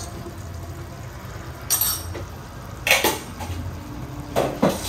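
A utensil clattering and scraping against a metal cooking pot while spices are stirred in: three short clatters, about two seconds in, three seconds in and near the end, over a steady low hum.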